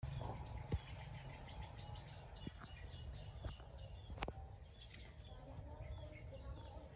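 Faint outdoor ambience with small birds chirping now and then, over a low rumble. A couple of sharp clicks stand out, one under a second in and one about four seconds in.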